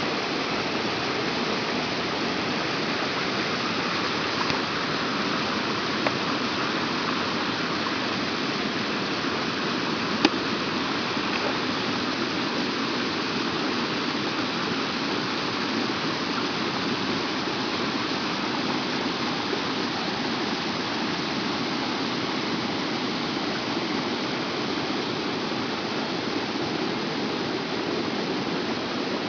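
Flowing water rushing steadily, with a couple of brief clicks.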